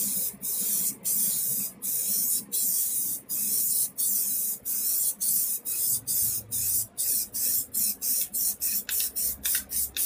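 Aerosol can of Triple Thick clear glaze hissing in a run of short sprays as a clear coat is laid over a finished spray-paint canvas. The sprays are longer at first and become shorter and quicker, about three a second, near the end.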